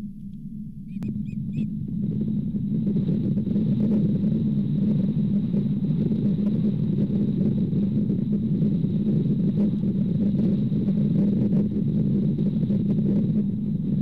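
Wind buffeting the nest-cam microphone: a loud, steady low rumble that swells up over the first couple of seconds. About a second in, three short bird chirps.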